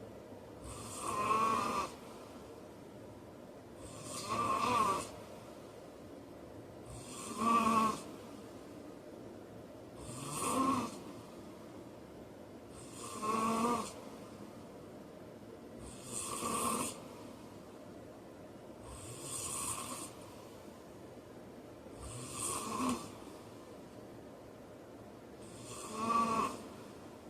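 A man snoring in a steady rhythm, about one snore every three seconds, each snore lasting about a second.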